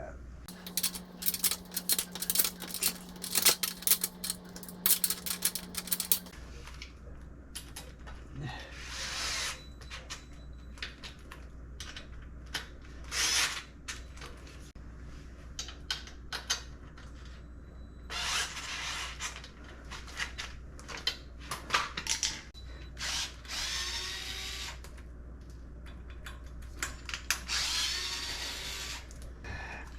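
Power drill run in several short bursts of one to two seconds, driving screws, with clicking and clatter of handled parts and tools in between.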